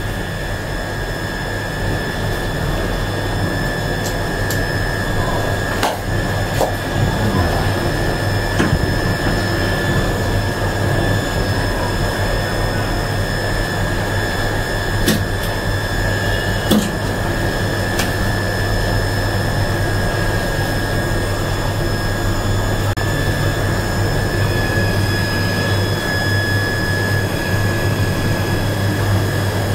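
Steady electrical hum with a thin high whine from an open elevator control cabinet, with a few sharp clicks scattered through it as the panel is worked on.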